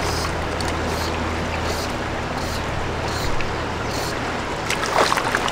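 River current rushing steadily over shallow riffles. A brief, sharper sound breaks in near the end.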